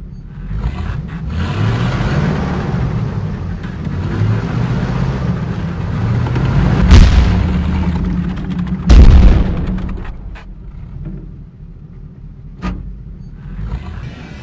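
Tank sound effects: a heavy engine rumbling as the turret turns, then two loud cannon booms about two seconds apart, each trailing off, followed by a couple of smaller sharp knocks.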